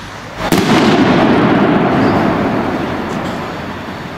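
The titanium salute of a Spanish volador de trueno rocket bursting overhead: one sharp bang about half a second in, followed by a long rumbling echo between tall buildings that fades over about three seconds.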